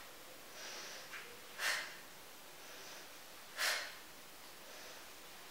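A woman breathing hard through a set of leg lifts with ankle weights: two sharp exhales about two seconds apart, with quieter inhales between them, out on each lift and in on each lowering.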